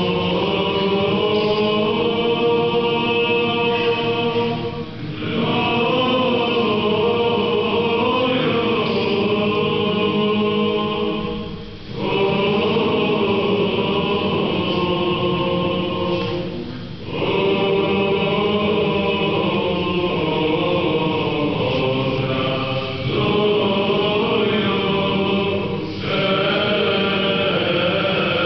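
Serbian Orthodox liturgical chant sung by an unaccompanied choir, in long held phrases of several seconds each, separated by brief breaks for breath.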